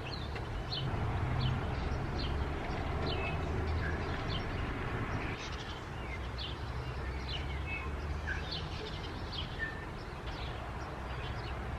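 Small birds chirping, many short separate calls scattered throughout, over a steady low rumble.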